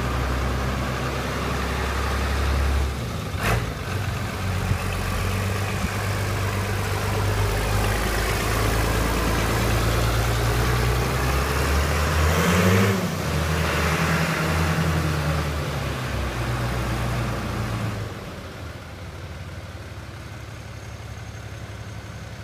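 Fiat 100-90 farm tractor's diesel engine running, its pitch shifting as the throttle changes, with a brief rev a little past halfway. There is a sharp click a few seconds in, and the engine drops to a quieter, lower note near the end.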